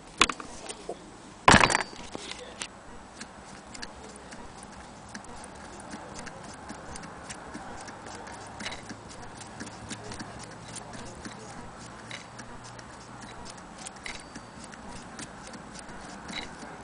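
Antique Willcox & Gibbs sewing machine: a sharp metal clack about a second and a half in as the presser foot is worked, then the mechanism ticking rapidly and evenly as it is turned to stitch through cloth.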